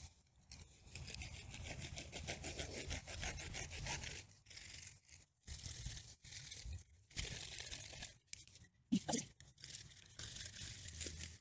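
Hand pruning saw rasping back and forth through the tough, matted root mass at the base of a clumping cat palm (Chamaedorea cataractarum). It comes in several runs of quick strokes with short pauses between them.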